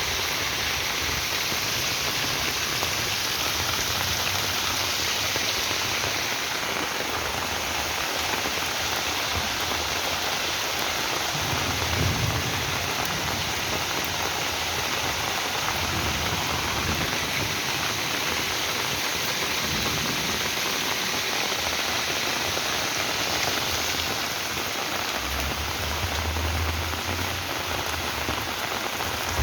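Rain falling steadily, a dense even hiss of drops hitting surfaces, with a few brief low rumbles.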